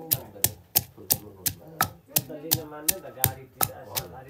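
Long wooden pestle pounding steadily in a wooden mortar, a hollow knock about three times a second.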